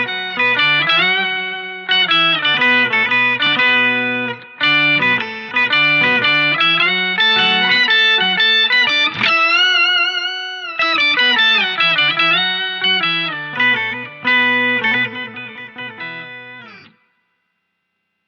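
Electric guitar played through an Electro-Harmonix Soul POG octave pedal: a phrase of notes with a note bent up and held about halfway through. The playing stops about a second before the end.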